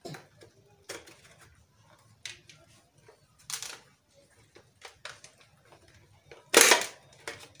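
Plastic clicks, taps and rustles of a crash-damaged motorcycle helmet being handled and its broken parts worked loose, with one louder, longer rasping burst near the end.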